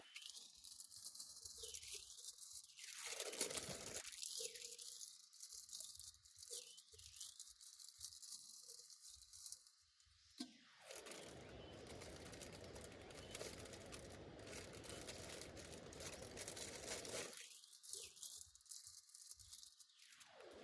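Rain falling steadily, heard as a fine crackling patter of many small drops.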